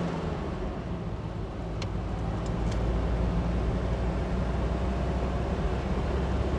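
Four-wheel drive's engine and tyres on beach sand, heard from inside the cabin: a steady low drone that strengthens a little after about two seconds, with a few faint ticks.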